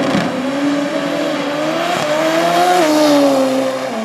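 Turbocharged Toyota 3RZ 2.7-litre four-cylinder drag car launching and pulling hard at full throttle down the strip. Its engine note climbs in pitch, then drops about three seconds in.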